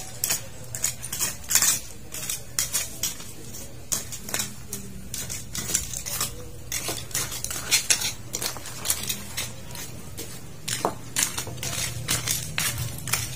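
Hand-weeding in a garden bed: a fast, irregular run of scraping, rustling and light clicking as weeds are pulled and soil is scraped.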